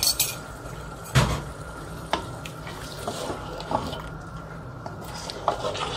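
Wooden spatula stirring thick mutton gravy in a steel pot, knocking and scraping against the pot, the sharpest knock about a second in. A flour-and-water slurry is being mixed in to thicken the gravy.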